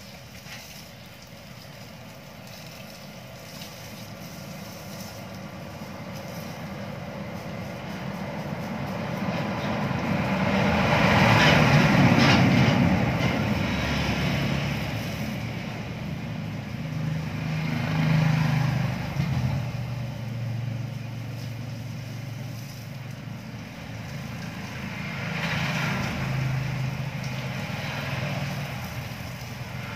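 Motor vehicles passing: engine noise swells to its loudest about twelve seconds in, then fades, with two smaller swells later.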